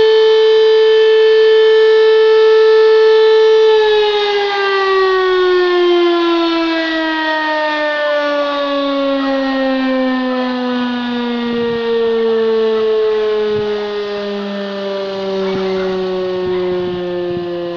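Electromechanical fire-station siren sounding a volunteer fire brigade call-out: it holds one steady tone, then is switched off about four seconds in and winds down, its pitch falling slowly as it fades.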